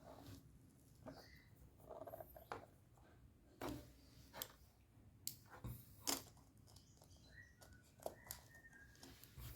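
Faint, scattered clicks and light taps of small laptop parts and tools being handled, about ten in all, the sharpest about six seconds in.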